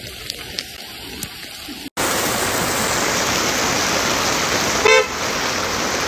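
Heavy rain pouring down on a flooded street, a steady hiss that gets louder after a sudden cut about two seconds in. A vehicle horn toots once, briefly, about five seconds in.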